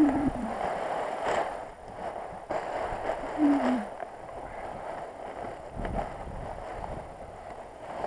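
Wind rushing over the microphone and the nylon canopy of a paraglider wing rustling and flapping on the ground, with a few dull thumps and two short, low falling tones.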